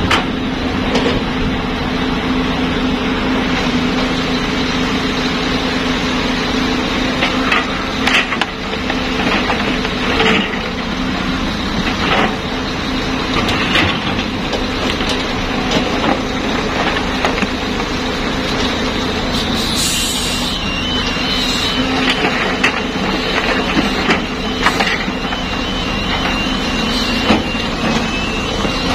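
Cat 320B hydraulic excavator's diesel engine running steadily under load as it digs and loads a dump truck, with scattered sharp knocks and clatter of rock and dirt striking the bucket and the truck's steel bed. A thin high beeping tone comes in about two-thirds of the way through.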